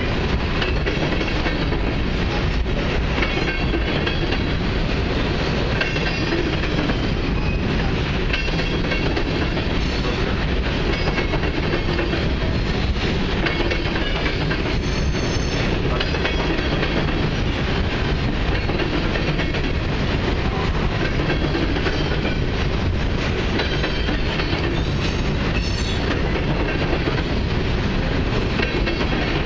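Freight train of covered hopper cars rolling steadily past, its steel wheels running over the rails in an even, continuous rumble.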